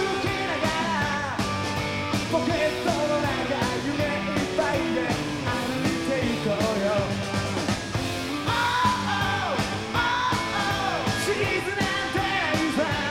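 Live rock band playing, with electric guitars through Marshall amplifiers, drums and a lead vocal.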